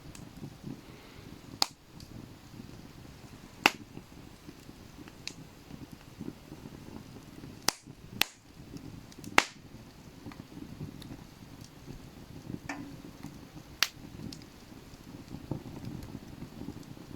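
Campfire burning with a low, continuous crackle, broken by about six sharp pops of burning wood at irregular intervals.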